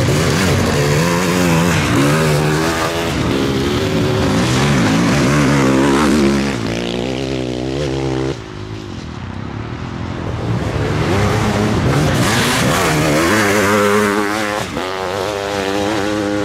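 Sidecarcross outfits' motorcycle engines racing, revving up and falling back again and again as they change gear. The sound drops suddenly about eight seconds in, then builds again as engines come back up to speed.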